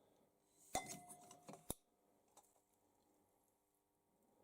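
A metal piece clinks about a second in and rings briefly with a clear tone, followed by a few small ticks and a second sharp click; then it falls very quiet.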